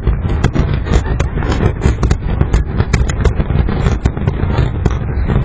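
A dense barrage of aerial fireworks shells bursting: many bangs overlapping in quick succession, with no gaps between them.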